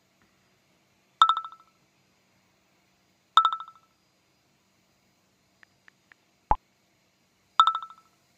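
Chat-app sounds from a phone: three incoming-message chimes, each a short bright tone with a quick ticking tail. Between the second and third chime come three soft keyboard taps, then a short sent-message pop.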